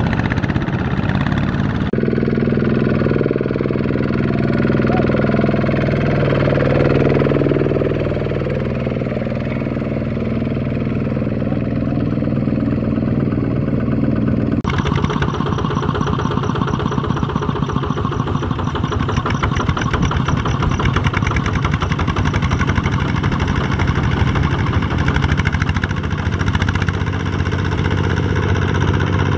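Single-cylinder diesel engines of two-wheel walking tractors running hard under load as they haul trailers through deep mud, with a rapid, even chugging. The engine sound changes abruptly about two seconds in and again about halfway through.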